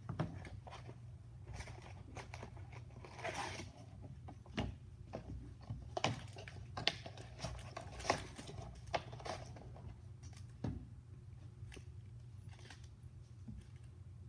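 Scattered taps, clicks and crinkles of trading card packs being handled and set down on a table, over a low steady hum.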